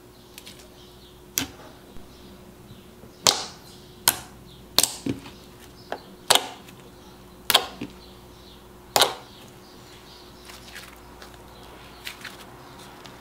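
Hot pink glossy slime being squished, poked and stretched by hand, giving sharp wet clicks and pops: about eight in the first nine seconds, then a few faint ones near the end.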